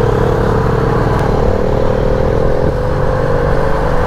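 Royal Enfield Bullet's single-cylinder engine running steadily under way, heard from the rider's seat.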